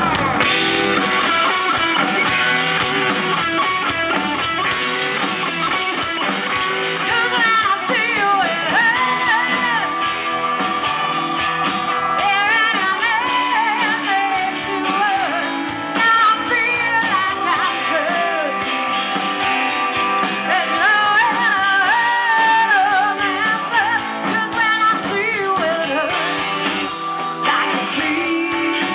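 Live blues-rock band playing: a woman singing lead over electric guitars, bass guitar and drums.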